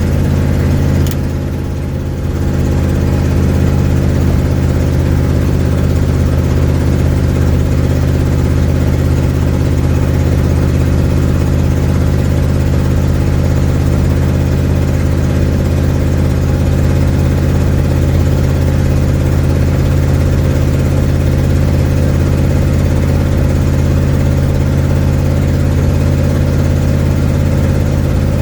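A 1972 Ford Mustang's engine running steadily under way, heard from inside the cabin, with an exhaust leak in the car's exhaust. The sound eases off briefly about a second in, then holds even.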